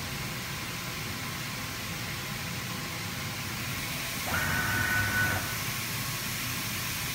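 Esko Kongsberg digital cutting table running with a steady hiss, and a short high whine for about a second, some four seconds in, as the tool head moves.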